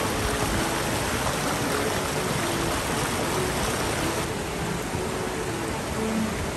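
Mountain creek water rushing and splashing over rocks, a steady full rush of white water. The hiss softens a little about four seconds in.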